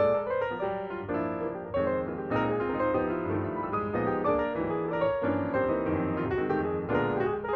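Background piano music, a steady run of notes with no speech.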